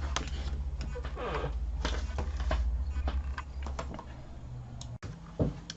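Paper and card being handled and shifted on a craft table: light rustles and small taps, over a low steady hum that fades out about four seconds in.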